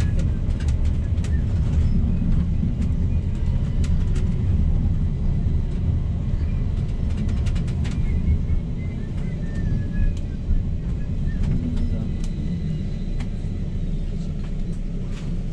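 Low-floor tram running, heard from inside the car: a steady low rumble of motors and steel wheels on the rails, with scattered clicks and rattles. The rumble eases slightly near the end as the tram slows into a stop.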